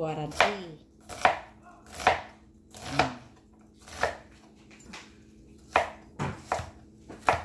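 Kitchen knife chopping vegetables on a cutting board: slow, uneven strokes about once a second, with a few quicker ones near the end.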